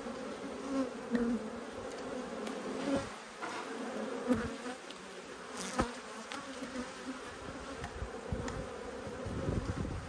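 Honeybees buzzing in a steady, droning hum over an open, crowded hive, with single bees passing close. The colony is agitated, which the beekeeper wonders may mean it has just gone queenless. There are a few light knocks of wooden frame and hive tool as a frame is lifted out, the clearest about six seconds in.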